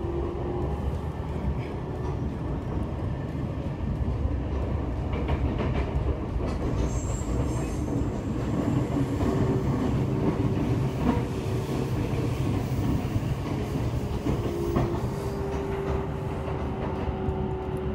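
A Seibu Railway train running, heard from inside the car: a steady rumble of wheels on rail with a steady hum and a few faint clicks.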